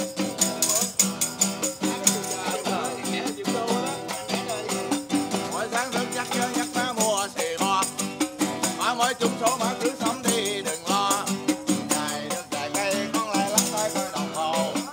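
Live acoustic guitar being strummed with a hand-held tambourine jingling along in rhythm, and a man singing over them with a wavering, sustained voice.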